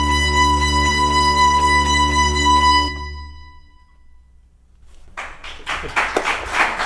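The closing chord of an electronic piece played with a string quintet: a held high electronic tone over strings and a deep bass drone, which cuts off about three seconds in and rings away. After a brief hush, studio audience applause starts about five seconds in.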